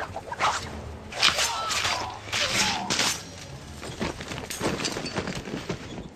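Film fight sound effects: a rapid series of blade swishes, slashes and thuds as Kroenen cuts down the guards, mixed with short cries. The strikes thin out and fade near the end.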